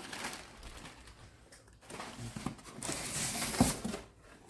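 Rustling and handling of cuckoo clock parts and packaging on a table, with a few light knocks, the loudest about three and a half seconds in.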